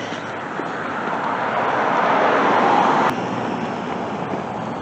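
A car passing close by, its tyre and engine noise swelling over a couple of seconds and then cutting off suddenly about three seconds in. Steady street traffic hum follows.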